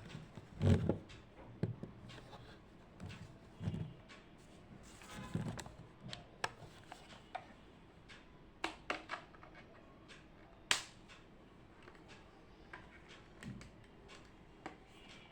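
Irregular small clicks, taps and soft thuds of objects being handled and set down at a desk. The sharpest click comes about ten seconds in, and several dull knocks fall in the first few seconds.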